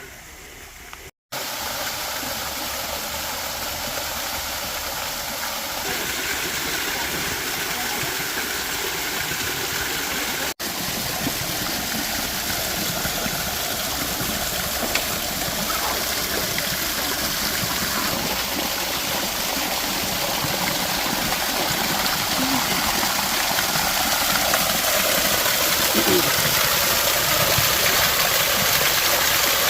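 Waterfall's steady rush of water, starting about a second in and slowly growing louder.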